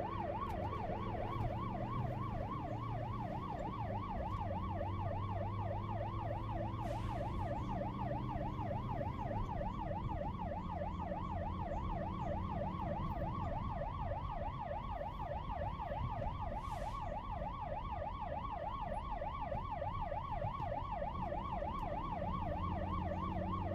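Ambulance siren on a fast yelp, a rapid up-and-down wail of about four sweeps a second, over a low rumble of road traffic.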